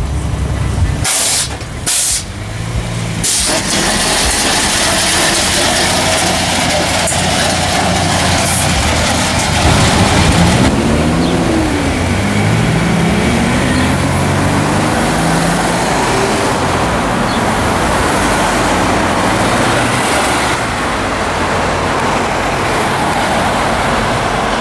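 Street traffic and car engines passing, with a few sharp knocks a few seconds in. About halfway through, an engine revs up and down several times, as when accelerating through the gears.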